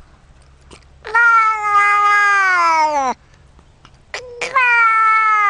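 Grey domestic cat giving two long, loud meows, each held about two seconds and dropping in pitch at the end; the second starts about four seconds in.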